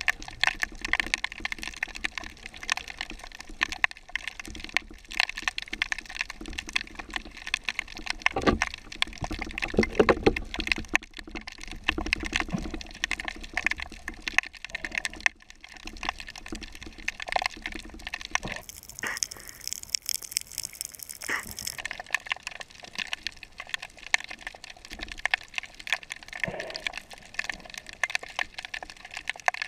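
Underwater ambience over a shallow, weed-covered rocky reef: a dense, continuous crackle of small clicks and pops. A few low thumps come about a third of the way through, and a hiss lasts about three seconds past the middle.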